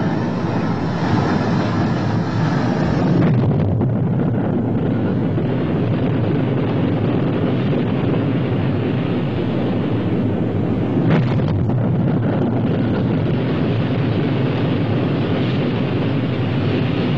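Rocket engines firing at liftoff: a loud, steady rushing noise of exhaust, with a brief sharper burst about eleven seconds in.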